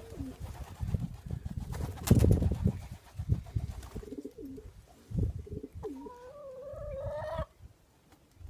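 Common wood pigeons cooing: short, deep coo phrases, with a longer, wavering, higher call about six seconds in. Low rumbling on the microphone comes and goes, loudest about two seconds in.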